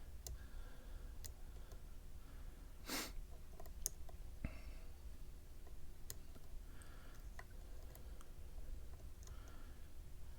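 Faint, irregular small metal clicks of a dimple pick and tension tool working the pins of a Mul-T-Lock 7x7 dimple lock, with one short hiss about three seconds in.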